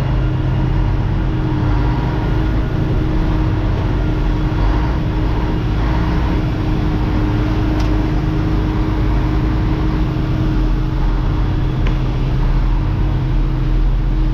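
Old Mack truck's diesel engine running steadily at a constant speed, a continuous low drone with a steady hum over it.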